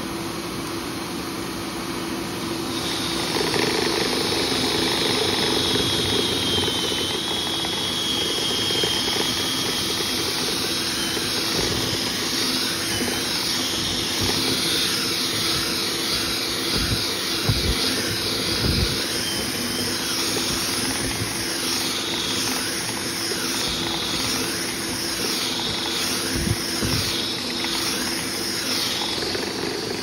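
A motor in dryer vent cleaning equipment running steadily with a high whine. It grows louder about three seconds in, and its pitch dips and wavers. A few dull thumps come near the middle and once more near the end.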